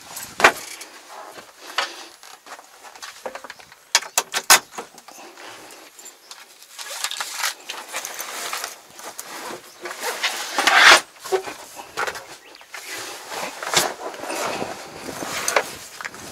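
A fabric bag being rummaged through by hand: cloth rustling and small items clinking, with a few sharp clicks about four seconds in and the loudest rustle near eleven seconds in.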